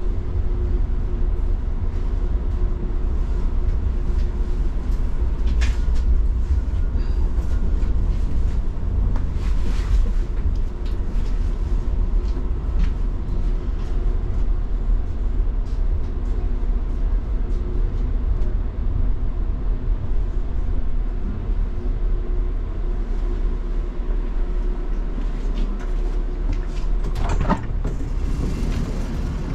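Electric city tram heard from inside the passenger car while running: a steady low rumble from the wheels and running gear under a faint steady hum, with a few light clicks and rattles. The rumble eases near the end, with a sharper knock as the tram slows into a stop.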